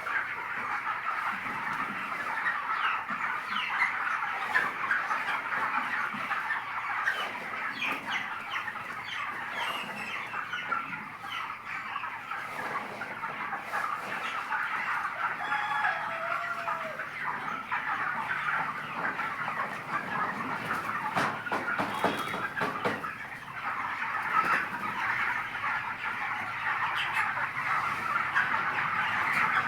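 A large flock of 25-day-old broiler chickens calling all at once, a dense, steady chatter of overlapping clucks and calls, with a few brief clicks about three quarters of the way through.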